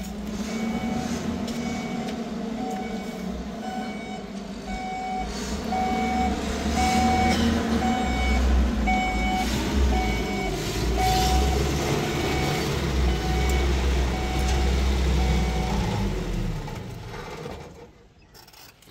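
A vehicle's reversing alarm beeping about once a second on one steady pitch, over a heavy engine running with a low rumble. Both stop near the end.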